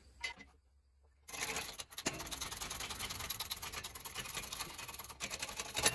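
Scraping and rattling of metal parts as the Triumph Spitfire cylinder head and its valve guides are handled at the press: a dense scrape full of fast fine clicks that starts about a second in and stops abruptly near the end.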